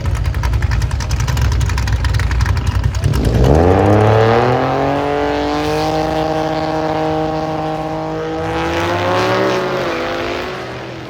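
Drag racing car running at high revs, then launching. Its engine note rises sharply and holds as the car accelerates, changes once more around eight seconds in, and fades toward the end.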